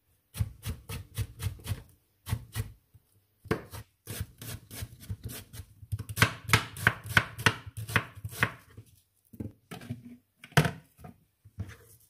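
Kitchen knife chopping vegetables on a cutting board: evenly spaced cuts about three a second through cucumber, then a faster, louder run of chops through an onion in the middle, thinning to a few scattered cuts near the end.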